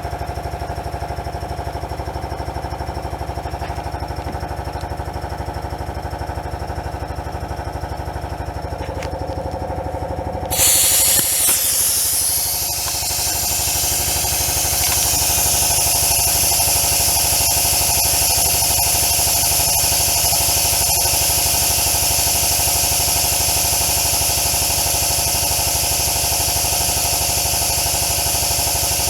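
Daihatsu Mira Cocoa's small three-cylinder engine running steadily at idle. About ten and a half seconds in, a loud steady hiss joins it and continues.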